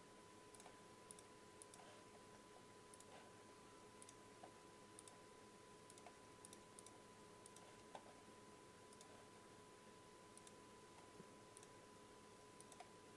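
Near silence with faint, irregularly spaced computer mouse clicks as drop-down menu items are picked, over a faint steady electrical whine.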